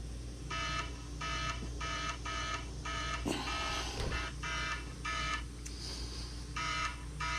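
FOBO Bike 2 tire-pressure monitor alarm beeping in repeated close pairs of electronic beeps, with a brief pause just before two-thirds of the way through. It was set off by the rear-tire sensor being unscrewed from the valve and losing the pressure reading.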